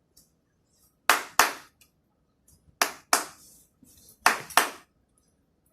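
Three pairs of sharp hand claps about a third of a second apart, each pair repeating every second and a half or so, imitating the lub-dub of a heartbeat (the first and second heart sounds).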